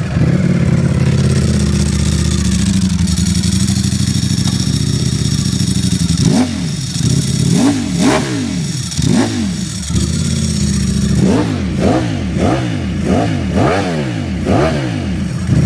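Ducati Streetfighter V4 Lamborghini's V4 engine, fitted with a Termignoni titanium exhaust, idling steadily and then blipped about ten times in quick succession from about six seconds in, each rev rising sharply and dropping straight back. These are revs in neutral, held down by the factory soft rev limiter at 4,000 rpm.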